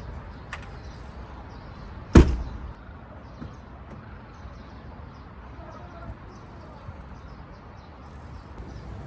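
A car door shut once with a loud thud about two seconds in.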